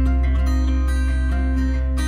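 Background music led by plucked guitar over a steady bass, with notes changing about every half second.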